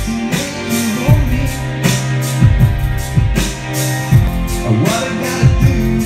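Pop song with guitar and drums playing loudly.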